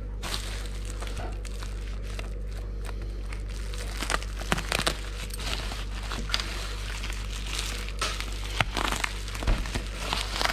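Bubble wrap and packing tape crinkling and rustling in irregular crackles as they are slit with a knife blade and pulled apart by hand.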